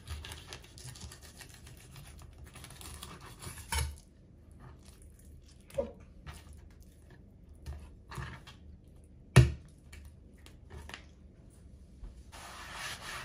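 Kitchen knife slicing a mackerel fillet off the backbone on a plastic cutting board: soft scraping and light taps of the blade and fish on the board, with one sharp knock about nine seconds in.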